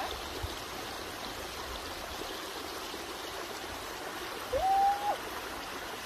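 Small rocky mountain creek flowing steadily over stones, a constant rushing trickle. About four and a half seconds in, a brief held high note sounds for about half a second, louder than the water.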